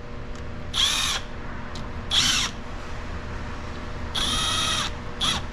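Cordless impact driver spinning bolts on a cylinder head in three short runs, the last the longest, just starting their threads without tightening them.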